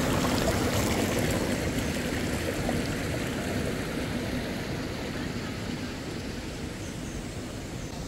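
Water flowing through a concrete channel and pool: a steady rushing that gradually fades.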